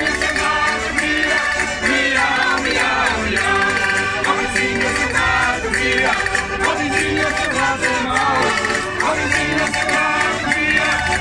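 A Portuguese folk group of men and women singing a traditional song together, with a hand-held wooden percussion instrument struck in time.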